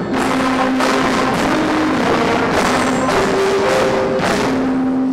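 Youth wind band playing a tune: trombones and trumpets hold notes that step in pitch, over regular bass drum and cymbal strikes.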